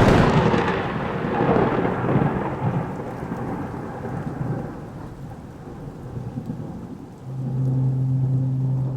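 A thunderclap breaks suddenly and rolls into a long rumble that fades over several seconds, over steady rain. About seven seconds in, a low held musical drone comes in.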